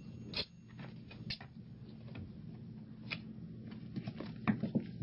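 A kitten's claws and paws clicking and tapping on a hardwood floor as it plays: a few sharp isolated clicks, then a quick cluster of taps near the end, over a faint low hum.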